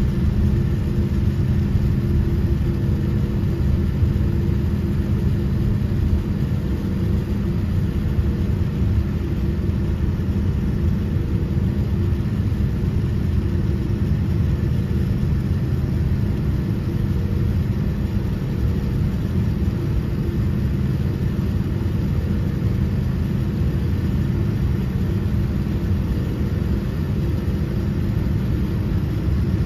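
Cabin noise of a Boeing 787-10 while taxiing: the engines at low thrust give a steady rumble with a constant hum. It is heard from inside the cabin.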